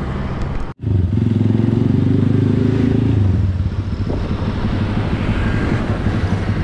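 A motorcycle engine running, first at a standstill, then after an abrupt break about a second in, under way on the road. It is strongest for a couple of seconds after the break, then settles to a steadier, slightly quieter note.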